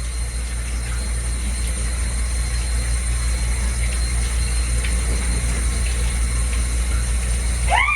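Water running steadily from a bathtub tap onto a dog being wetted, a constant low rushing rumble with a hiss over it.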